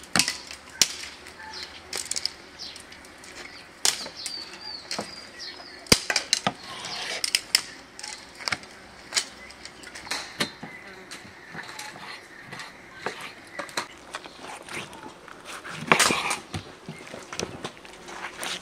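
Knife slicing lamb liver on a wooden cutting board: irregular sharp knocks of the blade against the board, with a louder scraping rustle near the end.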